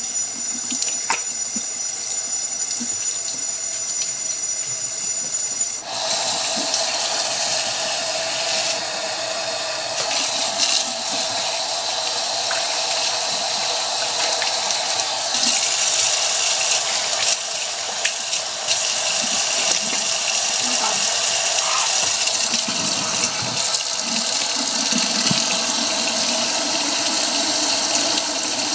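Kitchen tap turned on about six seconds in and left running, a steady, even rush of water into the sink.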